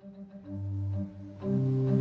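Organ music: long held chords that swell in about half a second in and grow louder around a second and a half in.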